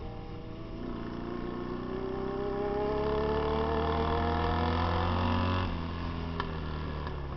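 Vintage Royal Enfield–built Indian motorcycle engine heard from on board, revving up steadily under throttle on a dirt-track straight for about five seconds, then dropping back abruptly as the throttle is rolled off near the end. A couple of faint ticks follow.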